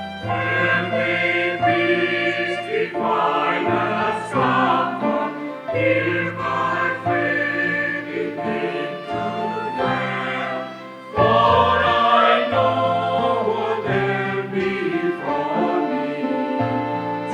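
Choir singing a hymn over sustained low instrumental accompaniment, with a short dip about eleven seconds in before the next phrase.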